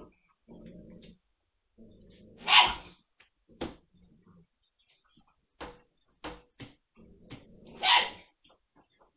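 Magyar Vizsla puppies play-growling in low rumbles, broken by two short, loud barks, one about two and a half seconds in and one near the end, with scattered clicks in between.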